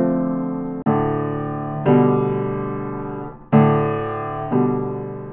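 Background music: slow piano chords, each struck and left to fade, a new one about every second.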